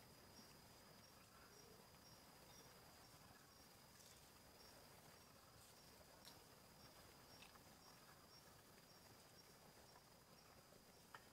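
Near silence with a faint, steady high insect trill, pulsing about three times a second, and a few faint clicks.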